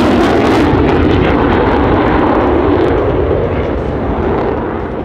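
F-35A Lightning II jet's single Pratt & Whitney F135 turbofan engine, a loud jet roar as the fighter pulls a tight, banking turn. The sharpest hiss drops away under a second in, and the roar fades over the last two seconds.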